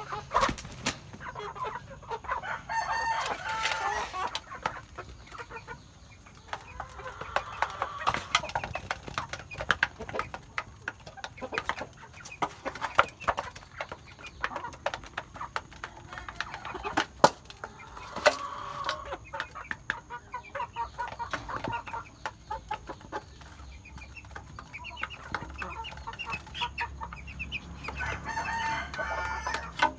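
Chickens clucking in short bursts of calls while they peck grain from a metal bowl, their beaks striking the bowl in many sharp ticks.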